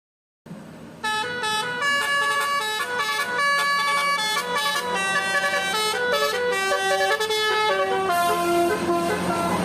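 Telolet basuri bus horn, a multi-trumpet air horn, playing a quick tune of stepped notes, starting about a second in. A steady low hum runs underneath, and a hiss builds near the end.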